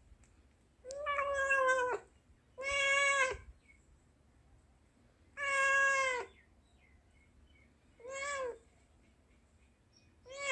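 Tabby-and-white cat meowing five times: three long meows of about a second each, then two shorter ones. It is begging for a fish held out of its reach.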